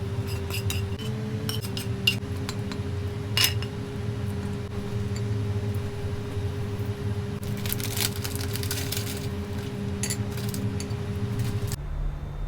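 Utensils clinking and scraping against dishes: scattered light clicks, then a denser run of clinks a little past halfway through, over a steady low hum.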